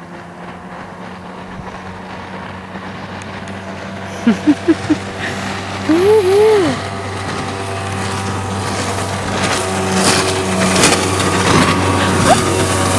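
Small outboard motor running steadily, growing gradually louder. A person's voice calls out briefly about a third and halfway through.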